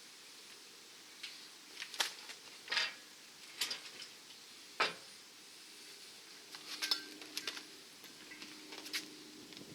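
Scattered metallic clinks and taps of steel bumper parts, bolts and hand tools being handled while the bumper is bolted on, about ten sharp clinks at uneven intervals, a few ringing briefly.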